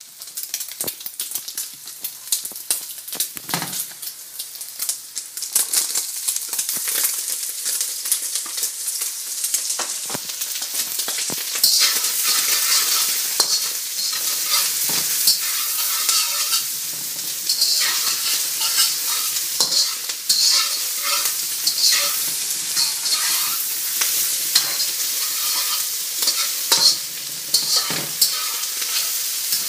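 Fried rice being stir-fried in a hot pan: a steady sizzle with frequent scrapes and clicks of a cooking utensil against the pan, growing louder a little under halfway through.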